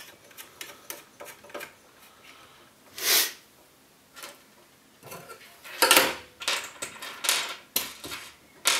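Hands working small metal CPU-cooler mounting parts (threaded standoffs and screws) on a motherboard: light clicks and clinks, with several short, louder scrapes about three seconds in and through the second half.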